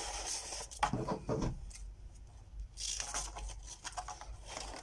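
Dull scissors cutting linen hinge tape, with scattered clicks of the blades and rustles of the tape in two short spells.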